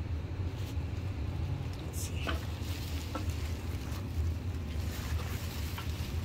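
Handling noises: a quilted moving blanket being shifted, with a few light knocks about two to three seconds in, over a steady low hum.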